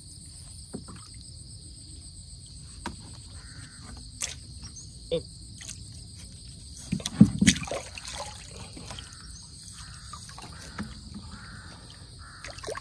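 Insects trilling steadily in two high-pitched bands. Scattered clicks and knocks sound over them, with a louder cluster of knocks and rustling about seven seconds in.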